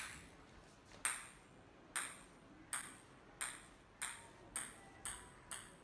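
Ping-pong ball clicking off a tiled floor as two cats bat it back and forth: nine sharp, ringing ticks, about a second apart at first and coming faster toward the end.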